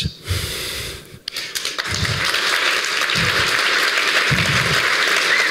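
Audience applauding, the clapping swelling about a second in and then holding steady.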